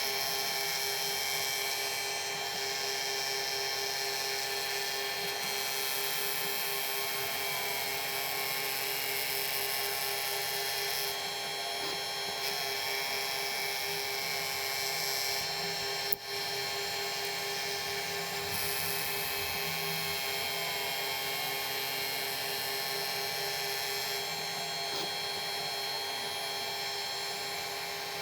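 A milling machine running steadily as it cuts a small metal part. It makes an even whine with a pulsing hum underneath. There is a sharp click about two-thirds of the way through.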